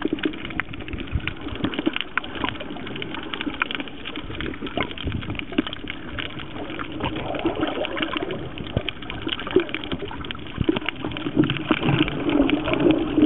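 Water sloshing and bubbling, with many small clicks and crackles, growing louder near the end.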